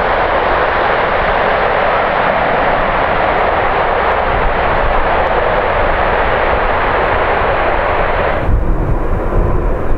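Jet airliner engines roaring steadily as a plane passes, cutting off abruptly about eight and a half seconds in and leaving a low, gusty rumble.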